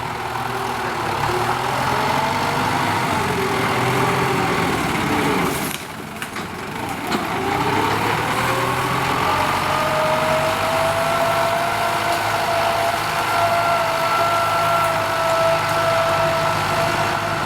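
Kubota M9540 tractor's diesel engine working under ploughing load. Its pitch wavers, sags briefly about six seconds in, then climbs and holds steady.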